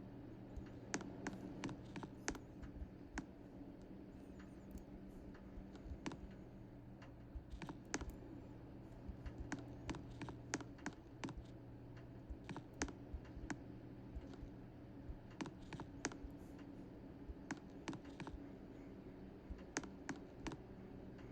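Ceiling fans running with a low, steady motor hum, over many irregular light clicks and ticks. The lowest hum drops out about halfway through.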